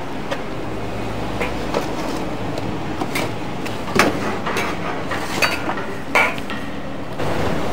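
A metal cooking utensil irregularly knocking and scraping against a pan as a chilli and curry sauce is stirred, over a steady kitchen background noise.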